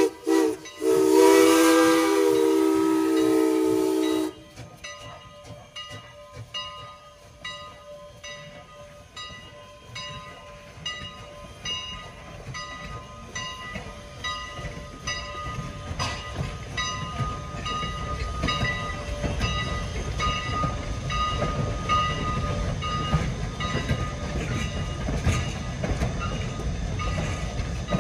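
Canadian National #89 steam locomotive's whistle blowing, with a brief break right at the start, then cutting off about four seconds in. After it, the locomotive's bell rings about twice a second while the low rumble of the train grows steadily louder as it approaches.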